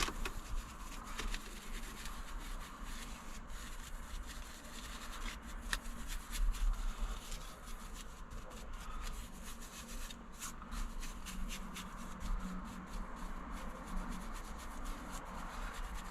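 Car seat upholstery being scrubbed and wiped by hand during interior cleaning: a faint continuous rubbing with scattered small clicks.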